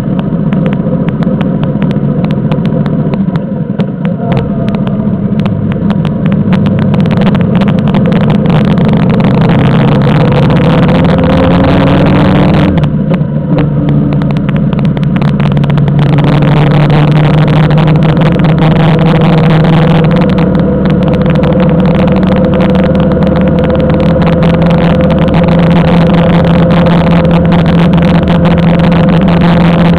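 Motorcycle engine running steadily under way, heard from the moving bike, its pitch shifting slowly with speed, with a brief dip in the engine note about thirteen seconds in.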